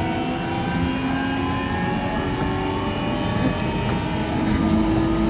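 JR E129 series electric multiple unit under way: the inverter and traction-motor whine shows as several tones rising slowly in pitch as the train gains speed, over a steady rumble of wheels and running gear.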